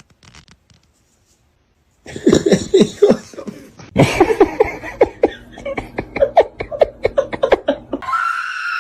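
A person laughing hard in rapid, repeated bursts, starting about two seconds in after near silence. It is followed near the end by a short steady tone.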